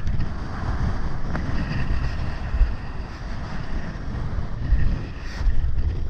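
Strong, gusty wind buffeting an action-camera microphone in an irregular low rumble, over the rush and splash of surf white water.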